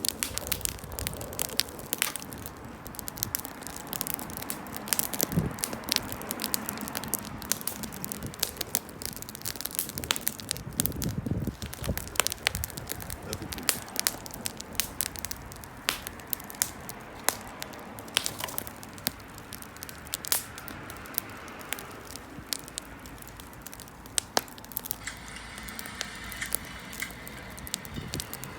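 A small bonfire burning, crackling steadily with frequent irregular sharp pops over a low hiss.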